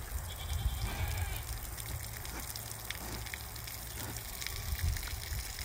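A sow and her piglets eating scattered grain: crunching and rooting noises with small clicks, and a brief high-pitched piglet call about a second in, over a steady low rumble.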